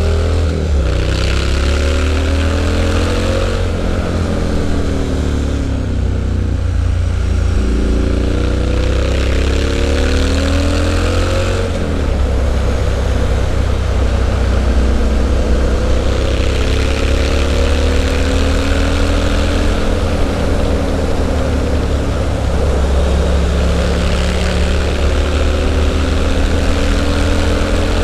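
Triumph Street Scrambler's 900 cc parallel-twin engine through a Zard aftermarket exhaust, under way: the revs climb and fall back several times as it pulls through the gears and shuts off for corners, with a sharp drop in revs about twelve seconds in.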